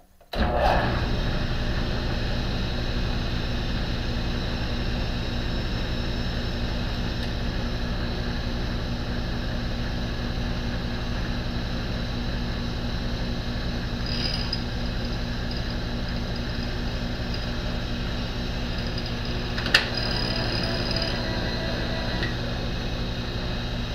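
An RF-31 mill-drill's spindle motor switched on and running steadily with the end mill turning. There is a faint high whine twice and a single sharp click about twenty seconds in.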